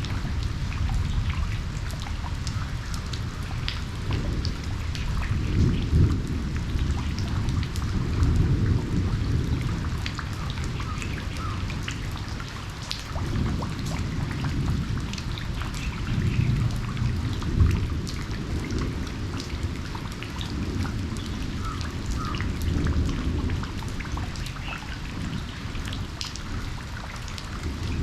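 Steady rain with many sharp drips and splashes of drops on surfaces. Under it, a low rumble of distant thunder swells and fades several times.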